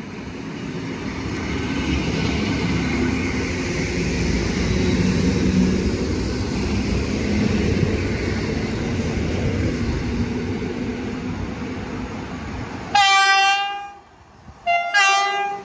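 Electric multiple unit train rumbling along the platform with a faint whine. Near the end an approaching electric locomotive sounds its horn in two loud blasts, about a second apart, the second blast on two tones.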